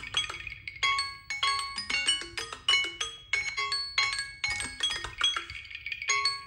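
Smartphone alarm tone: a melody of bright, bell-like mallet notes struck a few per second in a repeating phrase, with a short break about six seconds in before the phrase starts again.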